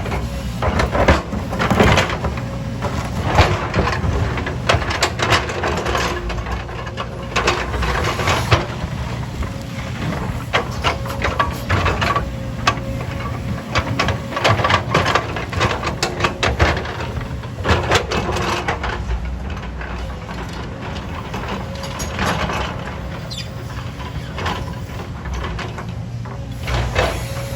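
Diesel engine of heavy earthmoving equipment running steadily, with irregular clanks and knocks throughout, typical of a working machine moving earth and rock.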